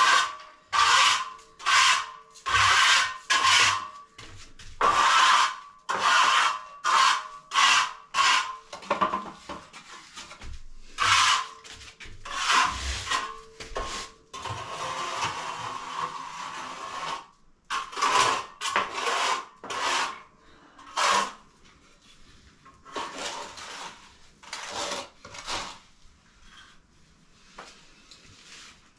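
A sponge float rubbing over fresh cement render on a wall, smoothing the finish in repeated strokes about once a second. The strokes grow fainter over the last several seconds.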